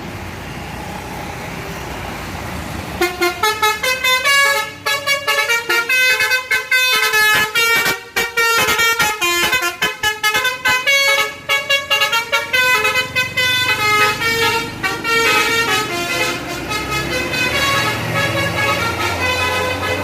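Tour bus's telolet basuri horn set playing a fast melody of short, changing-pitch notes, starting about three seconds in. Before it, the bus engine is running.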